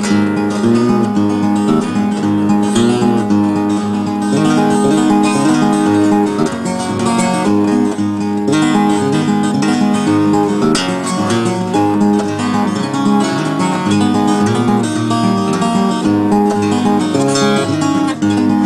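Background music played on acoustic guitar, a run of plucked and strummed notes at a steady level.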